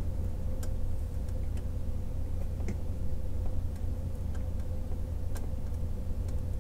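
Faint irregular ticks and clicks, about one a second, from small wires and the metal helping-hands clamp being handled during soldering. They sit over a steady low hum with a thin steady tone.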